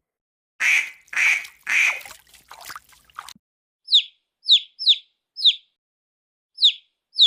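A duck quacks three times in quick succession. About two seconds later a small bird starts chirping, giving short, high chirps that fall in pitch, about six of them at uneven intervals.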